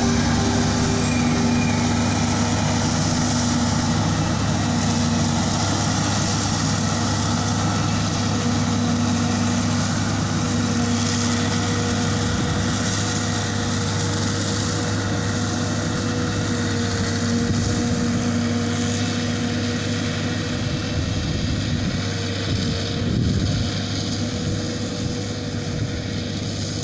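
Claas self-propelled forage harvester running under load as it chops maize into a silage trailer, with the tractor alongside. A steady mechanical drone with a humming tone, slowly fading as the machines move away.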